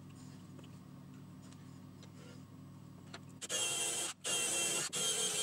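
Cordless drill boring a hole into a wooden board, starting about three and a half seconds in and running with brief stops. Before it starts, only a low steady hum.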